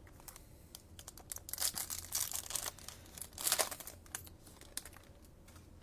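Plastic trading-card pack wrapper crinkling and being torn open in short bursts, with scattered clicks. The loudest rustles come about two and three and a half seconds in.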